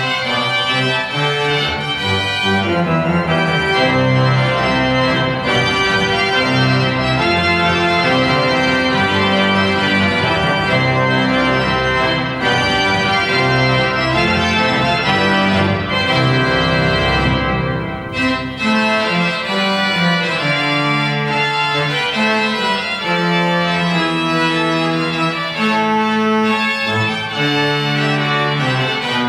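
Pipe organ of Oliwa Cathedral playing full, sustained chords with moving lines above. A deep bass note swells past the middle of the passage, and the music briefly thins soon after.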